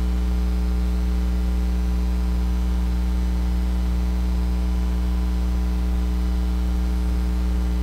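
Steady electrical mains hum: a low, unchanging hum with a row of evenly spaced overtones above it.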